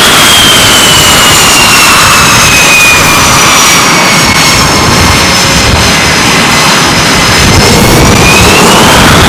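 F/A-18 jet engines running loud on a carrier flight deck: a constant roar of exhaust noise under a turbine whine that slowly falls in pitch, then rises again near the end.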